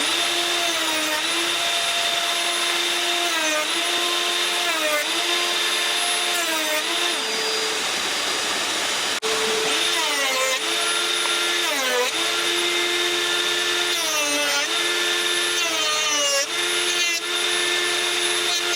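Electric wood router running at high speed, its whine sagging in pitch again and again for a moment and recovering as the bit is loaded in the cut.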